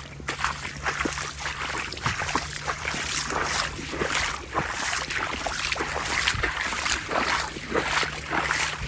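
Footsteps wading and splashing through shallow floodwater, with irregular sloshes all the way through. Under them runs a steady low engine hum that starts as the sound begins.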